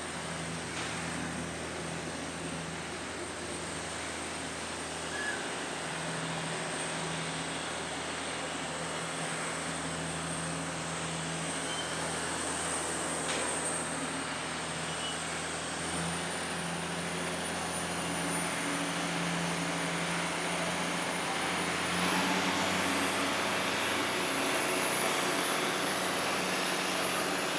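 Steady running noise of a vehicle, with a low hum and a faint high whine that steps up in pitch twice; it grows a little louder near the end.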